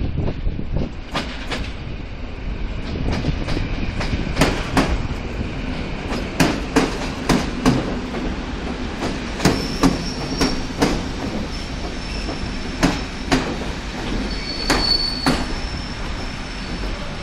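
Electric multiple unit train pulling slowly into a station: a steady rumble with irregular clacks of the wheels over rail joints and points, and from about ten seconds in a high thin squeal that comes and goes.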